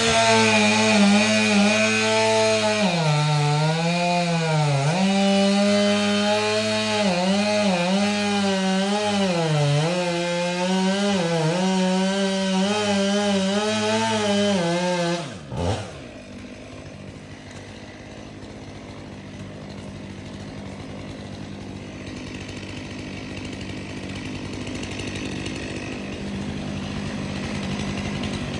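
Two-stroke chainsaw at full throttle cutting into a Canary Island date palm, its engine pitch sagging and recovering again and again as the chain bites. About fifteen seconds in, the throttle drops abruptly and the saw settles into a quieter, steady idle.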